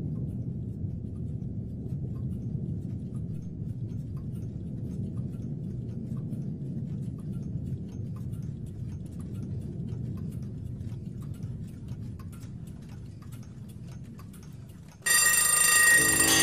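A low steady rumble with faint scattered ticks, then near the end many clock bells and chimes suddenly ring out together, much louder, like a room full of alarm clocks and chiming clocks going off at once.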